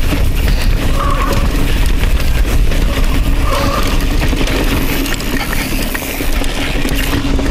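Mountain bike riding fast down a rocky trail, heard on a helmet or chest GoPro: a steady rush of wind on the microphone over the rattle and rumble of tyres and frame on rocks, with two brief squeaks about a second in and again a couple of seconds later.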